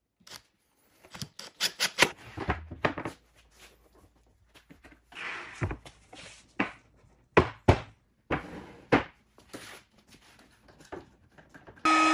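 A string of sharp wooden knocks and clatters as plywood and tools are handled and set down on a workbench, with a few louder knocks around the middle. Near the end a palm trim router switches on and runs with a steady whine.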